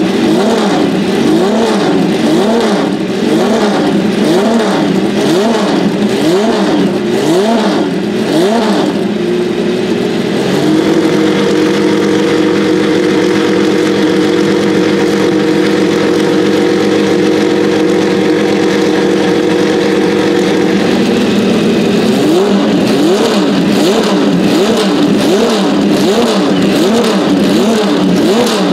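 Porsche 917K's air-cooled flat-12 engine being blipped on the throttle, quick rev rises and falls more than once a second, while the car sits still warming up. About ten seconds in it is held at steady raised revs for roughly ten seconds, then the blipping resumes.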